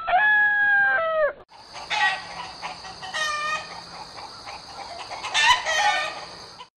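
Farmyard sound effect: a rooster crows, its long held call dropping off about a second and a half in, then chickens cluck and call over a steady high hiss, cutting off suddenly near the end.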